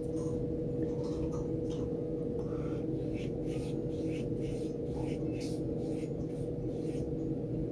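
Watercolor brush strokes on wet rough cotton paper: soft, brief scratchy swishes, several a second at times, over a steady low electrical hum.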